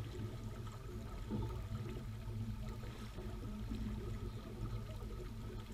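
Water rushing and splashing along the hull of a J-35 sailboat under sail, over a steady low rumble of wind.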